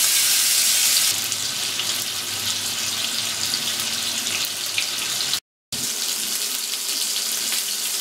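Marinated fish pieces sizzling as they shallow-fry in hot oil in an iron pan. The sizzle is loudest in the first second as pieces go in, then settles to a steady hiss with scattered pops and crackles. It drops out for a moment after about five seconds and resumes.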